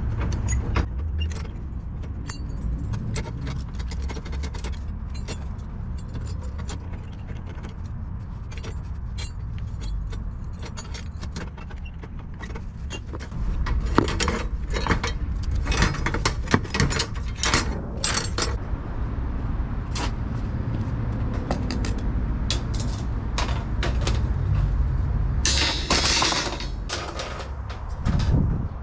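Metallic clinking and scraping as a hand wire-twisting hook ties steel tie wire around the joints of a rusty rebar cage, with many sharp clicks that come thickest in the middle. A steady low rumble runs underneath.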